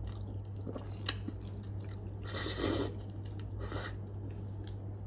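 Chewing of Buldak instant noodles, with a sharp click about a second in and two short hissy bursts past the middle, over a steady low hum.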